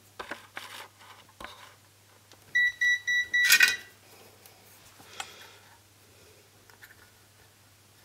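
Short electronic beeps, four quick ones at one high pitch, ending in a loud, brief noisy burst. Light handling clicks and taps come before them.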